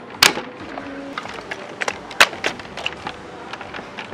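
Hard plastic parts of a Giant Saver robot toy clicking and clacking as it is handled: a string of irregular sharp knocks, the loudest about a quarter second in and just after two seconds.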